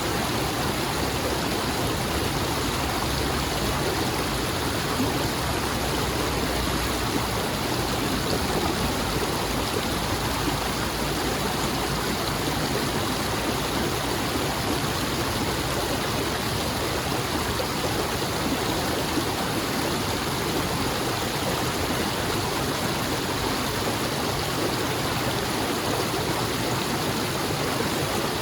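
Flowing stream water rushing and babbling steadily, with no change in level.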